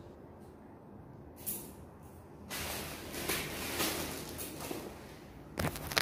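Handling noise: rustling as a fiber patch cord and its plastic packaging are handled, starting about two and a half seconds in, followed by a couple of sharp knocks near the end as the phone is moved.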